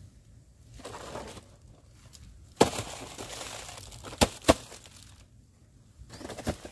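A stiff blue plastic sack being handled and pulled about, crinkling and rustling in bursts, with two sharp knocks close together about four seconds in.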